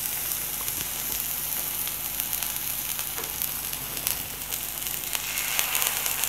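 A chicken keema kabab patty sizzling in ghee on a hot cast-iron tawa: a steady hiss with scattered small crackles, growing a little louder near the end.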